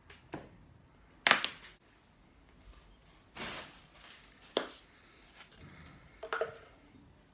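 Fast-food packaging being cleared off a table: cardboard boxes, paper wrappers and a paper cup handled. Five or so short rustles and knocks, the loudest about a second in.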